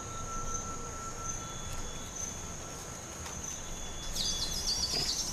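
Insects droning steadily on one high note, with a short warbling bird call about four seconds in.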